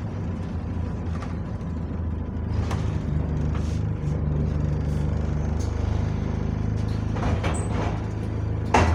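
Bus engine running as heard from inside the saloon, its drone rising a few seconds in and changing pitch again past the middle. A sudden loud burst of noise near the end.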